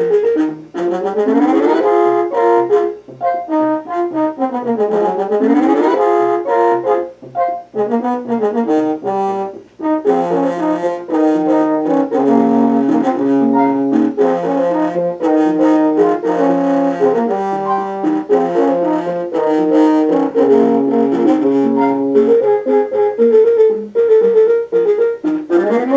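Mountain Computer synthesizer board on an Apple II playing a multi-voice tune in brass-like tones. It opens with fast rising and falling runs, then carries a melody over a stepping bass line from about ten seconds in.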